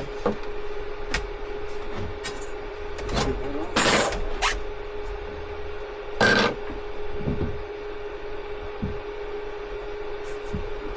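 Scattered knocks and scrapes of parts being handled and fitted by hand, the loudest about four and six seconds in, over a steady faint hum.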